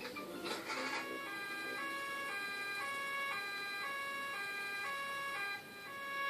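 Cartoon two-tone 'nee-naw' siren of the doctor's car, switching between a high and a low note about twice a second. It starts about a second in and stops shortly before the end.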